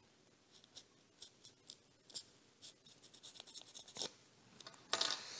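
Faint scratching and small ticks of a piece of tape handled between the fingers and pierced with a thin wire, with a sharper click about four seconds in and a louder rustle near the end.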